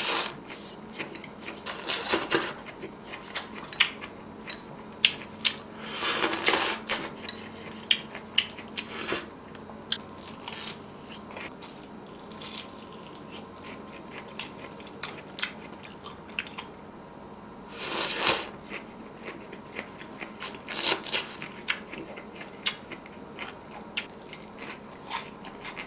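Close-miked eating: several loud slurps of pho rice noodles and broth, with crunchy bites and chewing of deep-fried shrimp and many small crackles and clicks between them.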